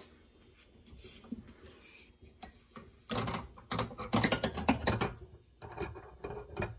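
Chrome ratcheting combination wrenches clinking and clattering against each other as they are picked through and lifted from a tool-drawer tray, loudest about three to five seconds in, with a few more metal clicks near the end.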